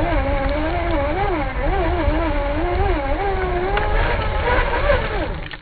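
Traxxas Summit's brushed electric motor and drivetrain whining at a low, wavering pitch as the throttle changes, over a low rumble, with a few clicks near the end; the pitch falls just before the sound drops away.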